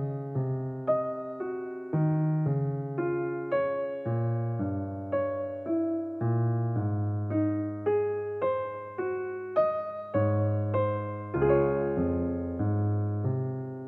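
Background music: a solo piano piece, a note or chord struck about twice a second, each decaying before the next, with a final chord left ringing near the end.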